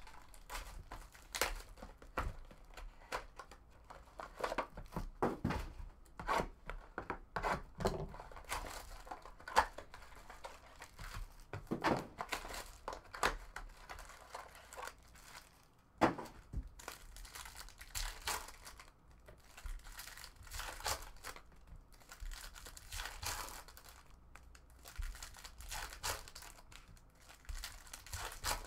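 Plastic wrap and trading-card pack wrappers being torn open and crumpled by hand, an irregular crinkling and tearing with a few sharper clicks and knocks.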